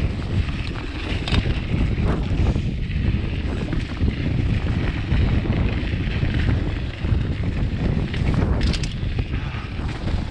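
Wind buffeting the microphone over the rumble of a mountain bike's tyres on a sandy dirt trail, with short clatters as it rides over bumps, loudest about a second and a half in and again near the end. The bike's chain slaps the chain stay, which has no protector fitted.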